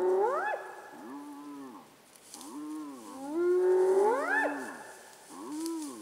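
Spotted hyenas whooping: a string of pitched calls, the long ones ending in a steep upward sweep, in a bout at the start and another about four seconds in.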